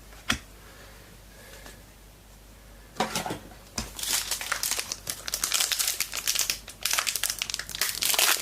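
A 2022 Footy Stars AFL trading-card pack being wrestled open: a single click just after the start, then from about three seconds in a dense run of crinkling and tearing from the wrapper, a pack that takes real effort to open.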